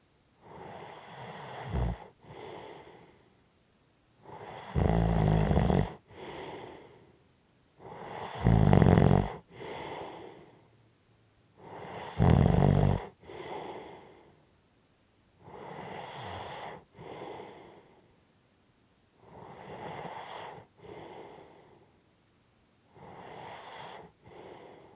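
A sleeping person snoring and breathing heavily, about one breath every three and a half to four seconds. Each breath is a long draw in followed by a shorter breath out. On three breaths in the first half, the draw in turns into a loud, rattling snore. The last few breaths are heavy breathing without the snore.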